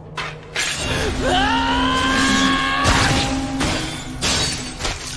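Anime fight sound effects: a loud rushing noise, then a high tone that glides up and holds for about two and a half seconds over a low hum. A sharp hit lands about three seconds in, and a crunching, shattering sound runs through it.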